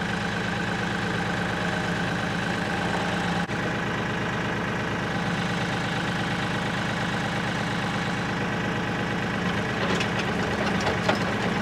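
Kioti compact tractor's diesel engine idling steadily, with a few light knocks near the end.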